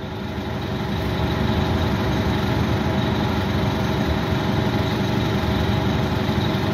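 Detroit Diesel Series 50 inline-four diesel engine of a 1989 Gillig Phantom transit bus idling steadily, heard from inside the bus cabin. The sound fades in during the first second or so.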